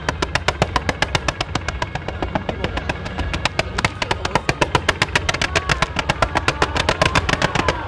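A string of firecrackers on a tall pole going off in a fast, even rattle of sharp bangs, about seven or eight a second, over a low rumble.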